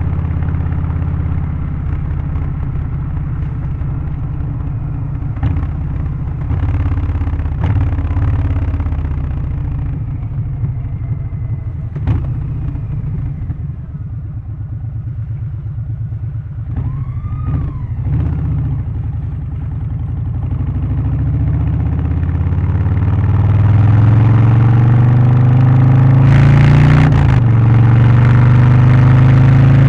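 Harley-Davidson Low Rider ST's Milwaukee-Eight 117 V-twin with a Stage 1 exhaust, intake and remap, under way. It runs at low revs through the middle, then pulls up, rising in pitch, from about two-thirds in, with a brief rush of noise near the end.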